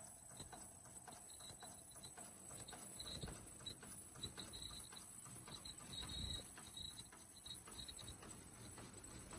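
Ultrasonic SIM card packaging machine running: faint, regular mechanical clicking a few times a second over a steady high-pitched whine.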